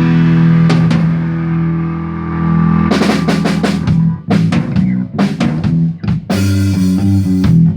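Rock band opening a song in a rehearsal room. A guitar chord rings out for about three seconds, with a drum hit under it. Then the full band comes in on drums and guitar, playing sharp stop-start hits.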